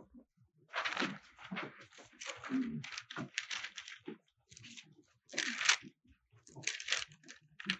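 Paper rustling and crinkling in irregular short bursts: thin Bible pages being leafed through.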